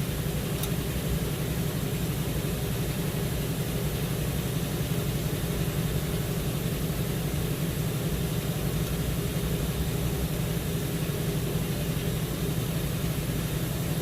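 A steady low mechanical hum that stays level throughout, with no knocks or tool strikes standing out.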